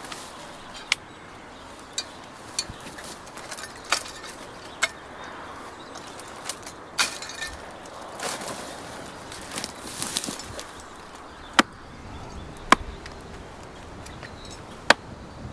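Billhook chopping into the base of hedge stems: sharp, irregular single blows a second or more apart, the loudest in the second half, with rustling and crackling of brushwood in the middle.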